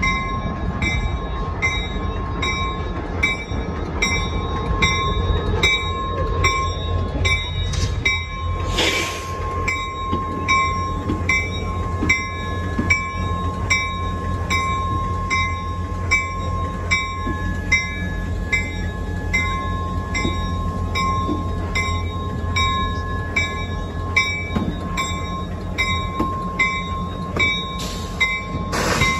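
Diesel locomotive rolling slowly past at close range, its engine rumbling, while a bell rings steadily at about one and a half strikes a second. A brief hiss about nine seconds in and again near the end.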